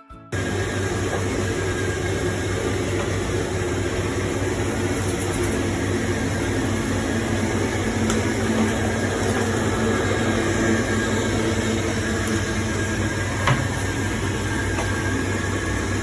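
Xiaomi robot vacuum-mop running close by: a steady motor and fan noise with a low hum. It starts abruptly just after the beginning, with one sharp click near the end.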